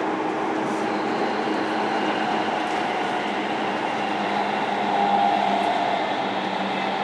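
Running noise heard inside a JR Kyushu 305 series electric train's motor car: a steady rumble of wheels on rail with level motor and inverter tones, swelling slightly about five seconds in.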